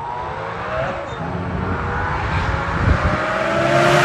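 Twin-turbo Lamborghini Gallardo V10 approaching under throttle, its engine note climbing slowly and growing steadily louder.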